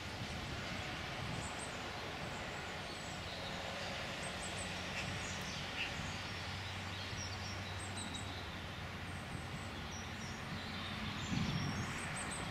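Steady outdoor background noise with scattered small bird chirps, and a faint low hum through the middle.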